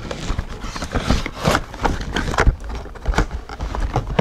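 Cardboard retail box and its card insert being handled and closed: irregular scrapes, taps and rustles of card against card.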